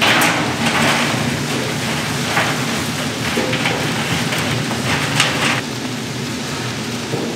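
A steady machine hum under a loud, uneven hissing that swells and fades, then eases off about two-thirds of the way through.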